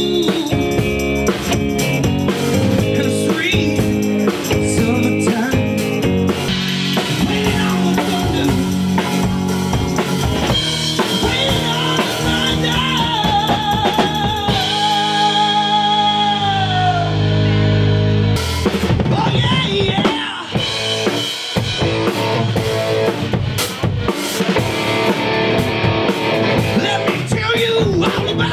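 Live rock band playing: drum kit, bass guitar and electric guitar. Midway a long held note wavers and slides down while the drums drop out under a sustained chord, then the full band with drums comes back in about four seconds later.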